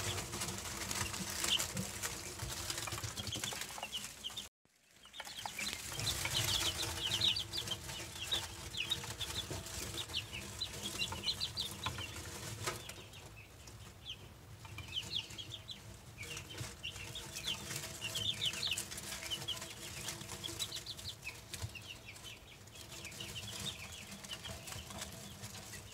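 Brood of baby chicks and quail chicks peeping: many short, high peeps over a steady low hum. The sound drops out briefly about four and a half seconds in.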